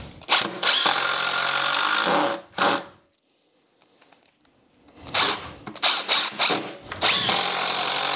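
Cordless screw driver driving screws home into 2x4 construction timber, without countersinking. There is one long run of about two seconds, a pause, a few short trigger bursts, then another long run near the end.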